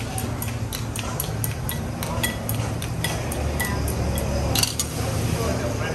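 Chopsticks and utensils clinking against ceramic and steel bowls as noodles are tossed with sauce, over a steady low hum and a regular light ticking about four times a second.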